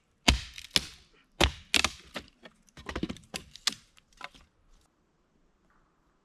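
Chopping on wood: about ten sharp, irregular blows over roughly five seconds, then stopping.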